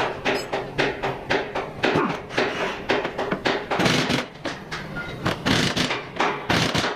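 A run of irregular knocks and clanks, like tools and metal suspension parts being handled and struck, over a faint steady hum.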